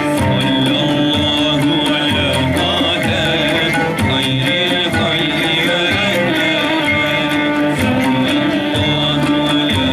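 A Turkish ilahi (Islamic hymn) ensemble performing: violin and frame drums keeping a steady beat, with a male choir singing in unison.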